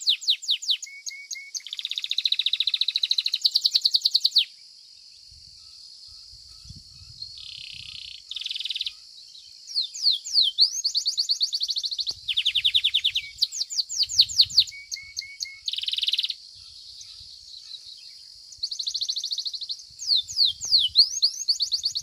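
Domestic Belgian canary singing: long runs of fast trills, quick repeated sweeping notes and buzzy rolls, broken by pauses of a few seconds about four seconds in and again about two-thirds of the way through.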